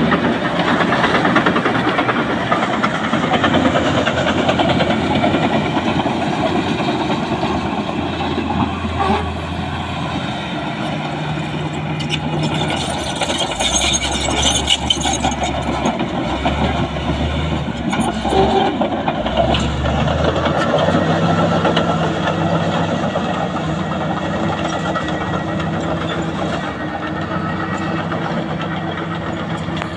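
Heavy earthmoving machinery running steadily: the diesel engine of a LiuGong B160C crawler bulldozer pushing soil, along with another machine close by.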